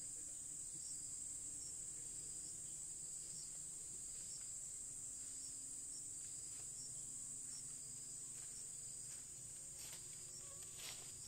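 Steady high-pitched drone of forest insects, with a softer chirp repeating about once a second just below it. A few faint clicks come near the end.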